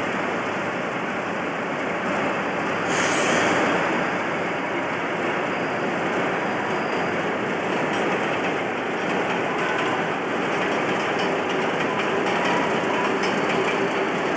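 A British Rail Class 50 diesel locomotive's English Electric 16-cylinder engine running loudly and steadily as the locomotive moves slowly past. There is a brief louder hiss about three seconds in, and a faint whine in the later seconds.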